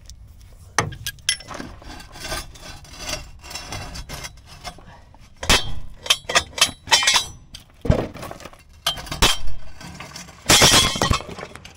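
Steel hand tools clinking and knocking as a socket is changed over to a breaker bar and fitted onto a stubborn engine mount bolt, with several louder metal knocks and a brief rasping noise near the end as the bar is pushed with a boot.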